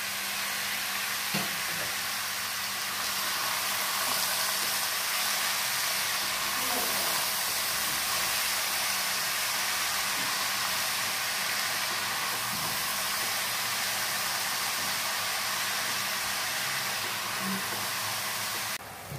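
Chopped pineapple sizzling steadily in hot ghee in a pan as it is stirred with a spatula. The fruit is cooking down in its own juice. The sizzle drops away abruptly near the end.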